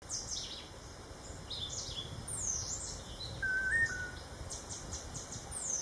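Birds calling: quick high chirps and descending whistles repeated throughout, with one short lower warbling whistle about halfway through, over a low rumble of background noise.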